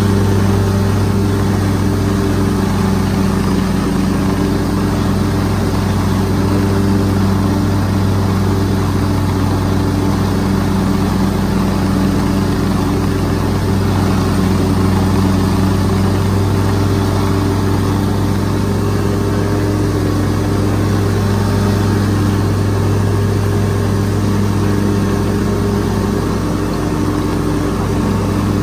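Commercial lawn mower's engine running steadily while cutting grass, a constant low hum with no change in speed.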